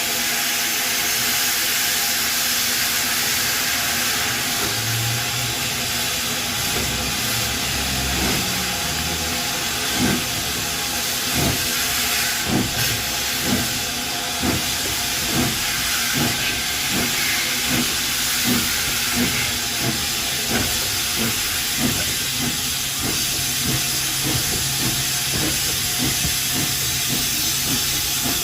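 J94 Austerity 0-6-0 saddle-tank steam locomotive letting off a loud, steady hiss of steam. From about ten seconds in, short beats join it at roughly one a second.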